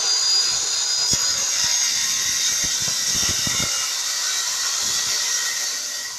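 Electric circular saw running and cutting through a wooden board: a steady high whine over the noise of the blade in the wood.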